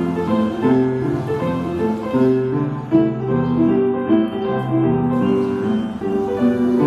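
Upright piano being played: a continuous run of melody notes over low bass notes that are each held for about a second.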